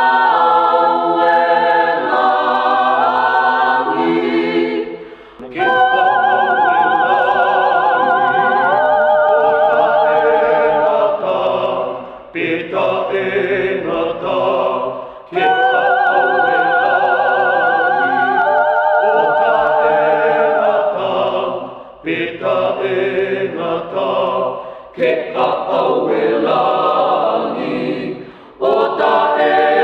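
Mixed a cappella choir of Fijian men's and women's voices singing a hymn of praise in harmony ("to you the praise … forever and ever"). The lines are held with vibrato, in phrases of several seconds, with short breaks between them.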